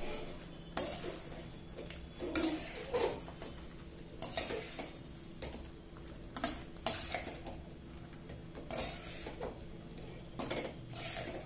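Stainless steel slotted spoon stirring fried chicken wings through sauce in a kadai: irregular clinks and scrapes of metal against the pan, about one every second, over a faint steady hum.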